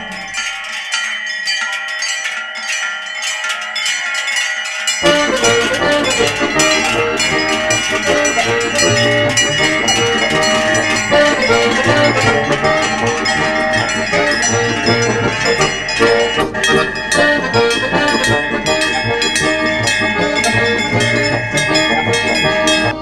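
Many large cowbells on a herd of walking cows clanging and ringing together in a dense, continuous jangle. A fuller, lower layer of sound joins about five seconds in.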